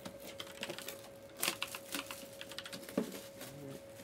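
Trading cards and a card box being handled on a table: a run of light clicks and taps, with two louder knocks, about a second and a half in and about three seconds in. A faint steady tone runs underneath.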